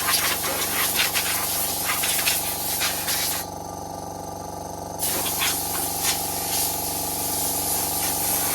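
Blast of air blowing cobwebs off a moped, over a motor that runs steadily. The blast stops for about a second and a half in the middle, then starts again.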